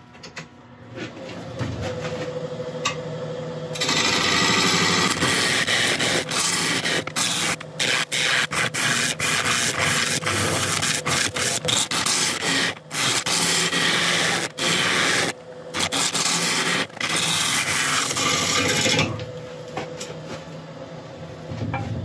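Bowl gouge cutting a spinning monkey puzzle log on a Record Power wood lathe: a rough scraping of steel on wood that grows loud about four seconds in and breaks off for an instant again and again as the tool meets the uneven, knotted surface. Near the end it drops back to the lathe running with a light hum.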